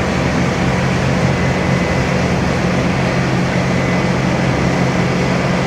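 Bobcat S510 skid steer's diesel engine running at a steady speed.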